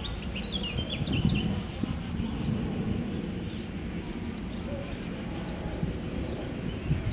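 Cicadas buzzing steadily in the summer heat, with a few quick bird chirps in the first second or so, over a low outdoor rumble.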